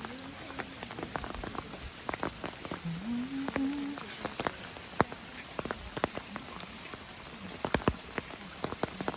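Heavy rain falling: a steady hiss with many sharp individual drops striking close by, the loudest about five seconds in and a cluster near eight seconds.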